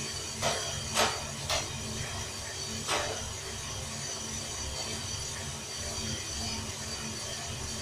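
Homemade coffee roaster running with a steady low hum and a light rattle, with four sharp clicks in the first three seconds.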